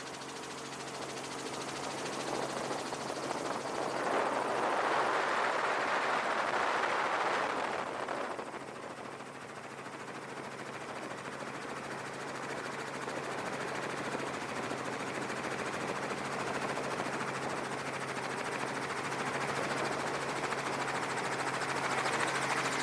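Helicopter rotor chopping over a steady engine drone, with a louder rushing swell from about four to eight seconds in.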